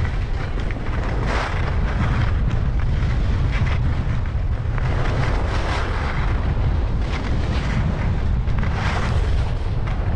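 Wind buffeting the microphone as a skier descends a groomed piste at around 30 km/h: a steady low rumble. Over it, swells of hiss every few seconds from edges scraping the packed snow in turns.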